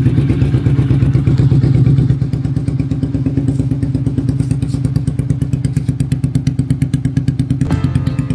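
Bajaj Avenger Cruise 220's single-cylinder engine idling through an aftermarket Cobra exhaust silencer, freshly started, with a loud, steady, even stream of exhaust pulses. The level settles a little about two seconds in. Music comes in near the end.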